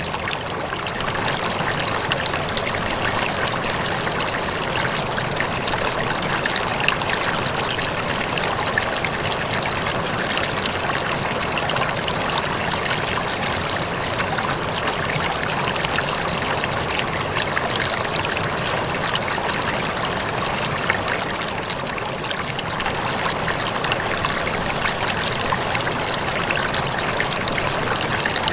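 Aquarium water trickling and splashing steadily, with fine scattered drips.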